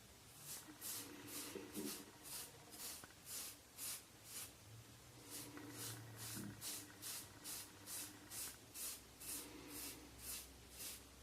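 Safety razor (Rockwell 6c) scraping through a week's growth of stubble on the scalp in short, quick strokes, about two a second, with a brief pause a little before the middle.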